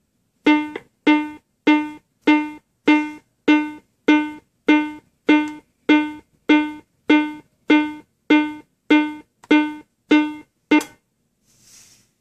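Schiller FRED easy AED's CPR metronome beeping steadily at about 100 beats a minute, pacing chest compressions. Each beep is a short, fading tone. The beeps cut off about eleven seconds in as the unit is switched off.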